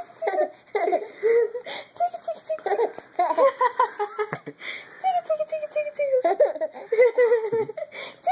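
A young baby giggling: short high-pitched bursts of laughter repeated all through, with a few longer squeals that fall in pitch.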